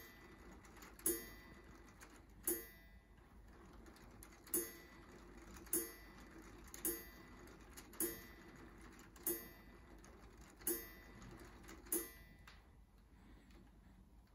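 LEGO Technic clock's striking mechanism striking the hour: a sharp strike about every second and a quarter, ten or so in a row, then stopping near the end.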